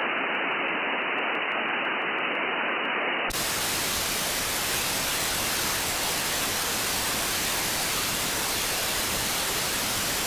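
Steady radio receiver static with no signal on the channel: hiss cut off above the voice band in sideband mode, which changes suddenly about a third of the way in to a brighter, full-range FM hiss as the receiver is switched to narrow FM.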